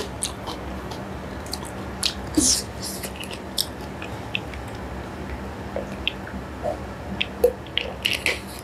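Close-miked chewing of soupy noodles, with scattered wet mouth clicks and smacks. About halfway through come swallows and sips of water from a plastic bottle.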